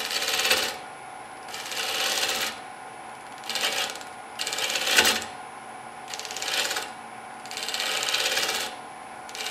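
Turning gouge cutting the outside of a spinning wooden bowl blank on a wood lathe, in about six short cutting passes each under a second, with the lathe's steady hum between them.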